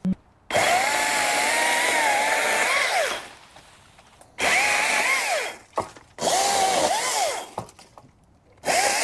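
Echo eForce 56V battery-powered brushless top-handle chainsaw cutting wood in four bursts of trigger, its motor whine wavering under load and falling away each time the trigger is let go.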